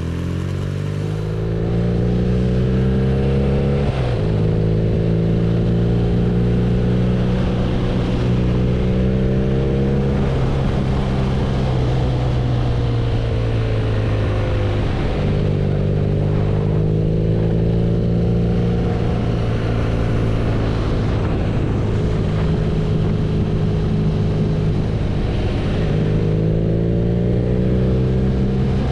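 BMW R nineT's air/oil-cooled boxer twin engine pulling on the road. Its pitch climbs and then drops sharply at upshifts about four seconds in and again around fifteen seconds, eases down in between, and holds steadier later. Wind rush runs underneath.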